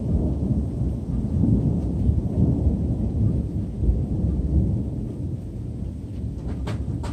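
Thunder rumbling: a long low roll that builds over the first couple of seconds, is loudest through the middle and slowly dies away toward the end.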